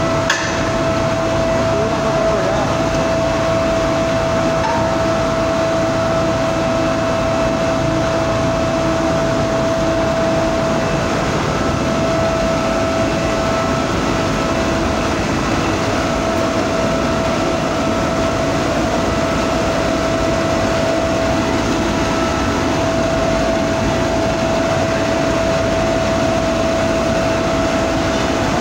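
Steady foundry machinery noise: a continuous loud drone with a constant mid-pitched whine running through it.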